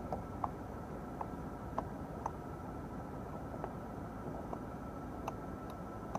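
Faint steady low hum inside a car cabin, with a handful of light, short ticks scattered through it.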